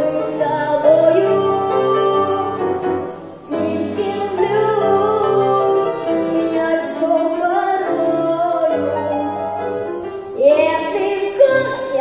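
A girl singing a blues-style children's song with piano accompaniment, with a brief breath-pause about a third of the way through.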